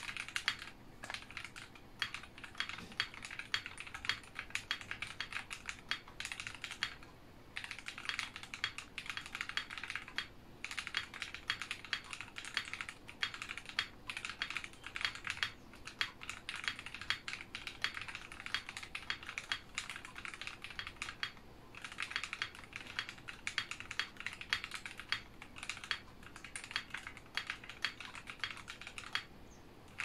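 Continuous fast typing on a walnut-cased Tofu60 mechanical keyboard, o-ring mounted, with a polycarbonate plate, Auralite switches lubed with 205g0 and fitted with Deskeys films, and EPBT ModernJa PBT keycaps. A steady stream of key clacks, broken by a few brief pauses.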